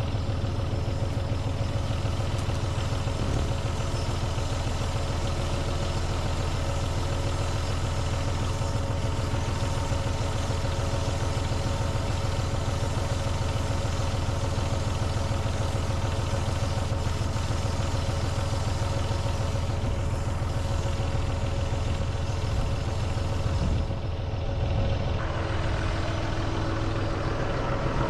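Farm tractor engine running steadily at low revs, a constant hum, its tone shifting slightly a few seconds before the end.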